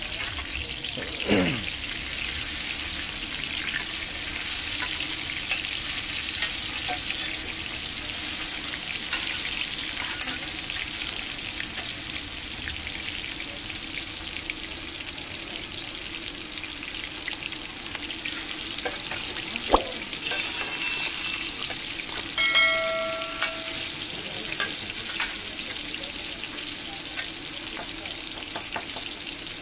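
Chicken pieces frying in oil on a large flat iron griddle: a steady sizzling hiss. A short falling sweep comes about a second in, a sharp click about twenty seconds in, and a brief beep-like tone a couple of seconds after that.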